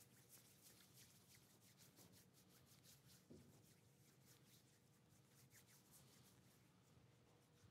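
Near silence with faint rustling and light ticks: cloth altar linens and a chalice being handled on the altar, the small sounds coming several times a second.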